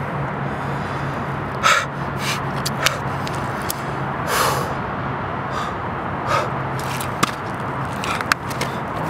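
A person's breath: several short, loud huffs over a steady low hum, with a few sharp clicks.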